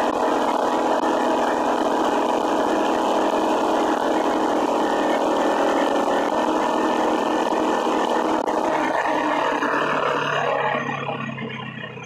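Small gas engine of a motorized bicycle running steadily at cruising speed, with wind and rolling noise. About ten seconds in, the rider lets off and the sound drops to a quieter, lower idle as the bike slows.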